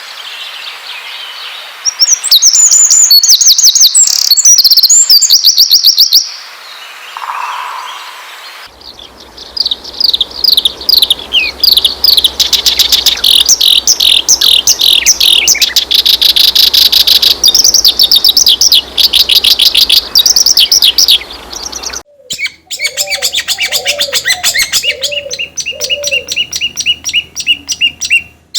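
Songbirds singing loudly in fast, chattering trills of rapid high notes, in several recordings joined by abrupt cuts about 9 and 22 seconds in. In the last few seconds a lower whistled note repeats about once a second under the trills.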